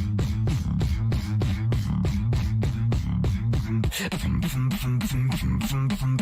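Beatboxing: a deep buzzing bass that shifts between notes, under a fast even run of sharp mouth clicks and snares, about six a second.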